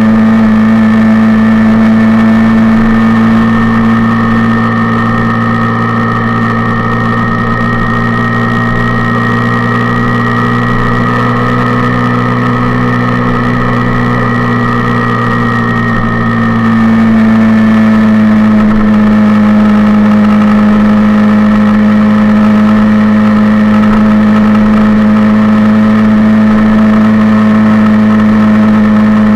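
Suzuki Intruder 125's single-cylinder four-stroke engine running steadily under way. A little over halfway through it gets louder and settles at a slightly lower pitch.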